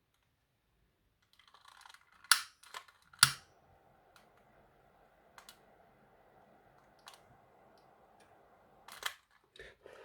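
A few sharp clicks, then a faint steady hiss for about five seconds and more clicks near the end, as heat is put to heat-shrink tubing over freshly soldered battery wires.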